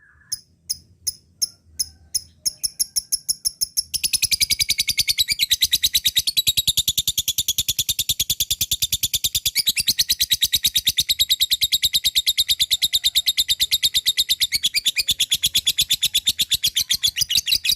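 Lovebird giving its long 'ngekek' trill. Separate sharp high chips speed up over the first four seconds and merge into a fast, unbroken chattering trill that runs for about fourteen seconds, then stops abruptly.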